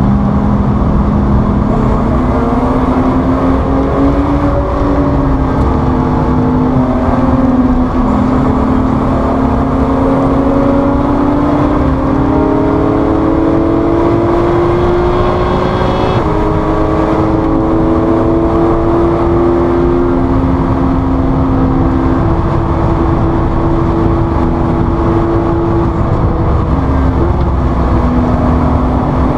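Sports car engine heard from inside the cockpit under acceleration on track, its note climbing slowly and dropping at upshifts about 7 and 16 seconds in, over steady road and wind roar.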